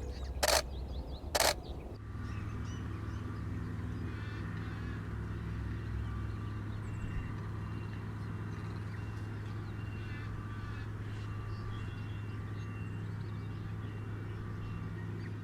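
Two DSLR shutter clicks in the first two seconds. About two seconds in the sound changes abruptly to a steady low hum with faint, short bird calls repeating over it.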